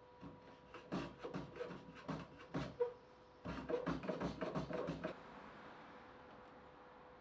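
Two bursts of rapid light knocks and clicks, each lasting a second or two, over a faint steady hum.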